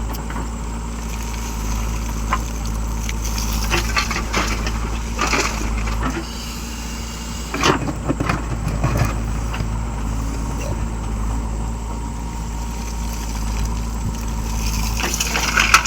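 Heavy vehicle engine running steadily at a low, even hum, with a few short knocks or clanks along the way.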